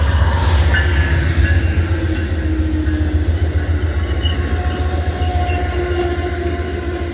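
Amtrak Northeast Regional train arriving at a station behind its diesel locomotive: a heavy, steady low rumble, with thin squealing tones from the wheels and brakes as it slows. One squeal holds through the first few seconds, and a second, higher pair sets in about five seconds in.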